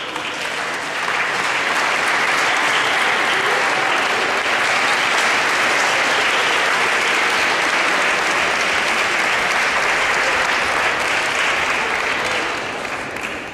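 An audience of schoolchildren applauding. The clapping builds up about a second in, holds steady, and dies away near the end.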